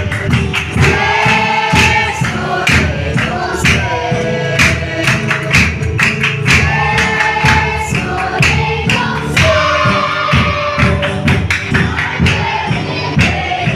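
A large group of voices singing a gospel song together over a steady drum beat.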